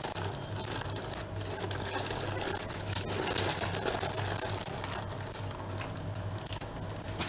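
Baking paper being peeled off the underside of a sponge cake, a soft papery rustling and crinkling, over a low steady hum.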